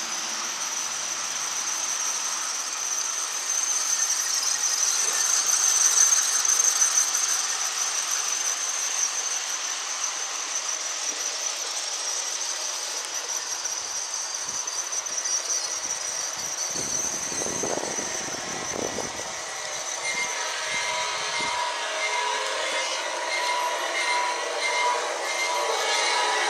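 G-scale model train of about 50 cars pulled by three powered locomotives, running steadily along garden track, with a high-pitched squeal over the rolling noise that is loudest several seconds in. From about two-thirds of the way through, several steady pitched tones join the running noise.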